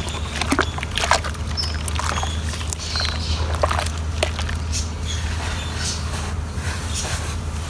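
Large chunks of pure cement crumbling in water: irregular crisp cracks and crumbles, some sharp snaps among them, over a steady low hum.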